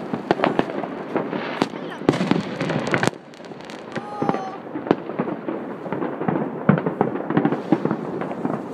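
New Year fireworks going off all around, near and far: a dense, continuous crackle of bangs and pops, some sharp and loud, others distant. A brief gliding whistle sounds about four seconds in.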